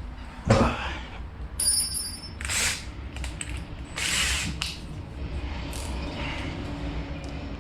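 A drill bit being changed in a cordless drill: the keyless chuck ratchets and clicks, and metal bits clatter and ring in their case, in a few short bursts over a low background hum.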